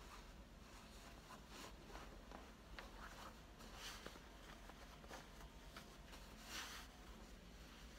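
Faint rustling of a yukata obi as it is folded and pulled into place, in soft brushes of cloth, the clearest about halfway through and the loudest a little after.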